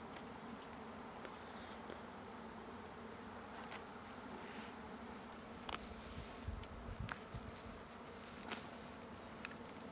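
Faint steady buzzing of a flying insect, with a few light clicks or knocks in the second half.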